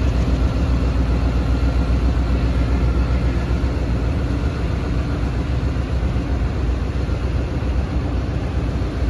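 Diesel-electric locomotive's engine running with a steady, loud low rumble as it moves slowly, hauling passenger coaches.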